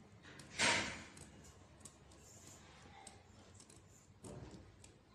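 Scissors cutting blouse fabric with the tips of the blades: a louder cut about half a second in and another about four seconds in, with faint small clicks of the blades between.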